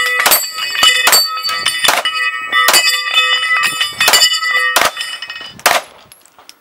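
Handgun fired in a steady string of shots at steel targets, about nine shots, each hit setting the steel plates ringing. The shooting stops about a second before the end.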